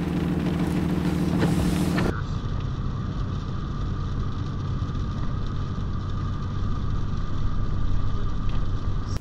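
Steady engine and road noise inside a Dodge pickup's cab while driving on a wet highway: a constant low rumble with a steady hum. The sound changes character about two seconds in, then runs on as an even drone.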